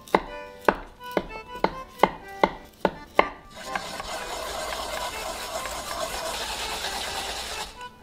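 A kitchen knife strikes a wooden cutting board about eight times in quick, sharp strokes as the skin is trimmed off a fresh wasabi rhizome. About four seconds in, the strokes give way to steady grating as the rhizome is rubbed on a fine stainless-steel grater.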